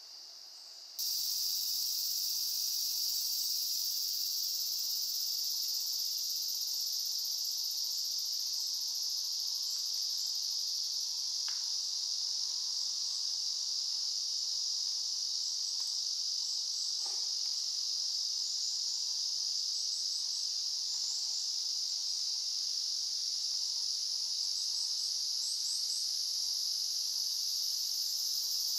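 A steady, high-pitched chorus of singing insects that starts abruptly about a second in, with two faint clicks later on.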